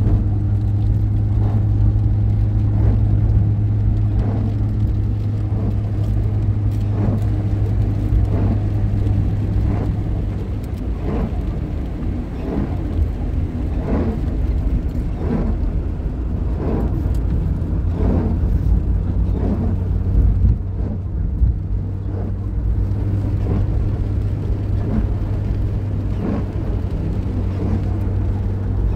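A motor engine running steadily with a low, even hum, overlaid by short knocks or rattles about once a second.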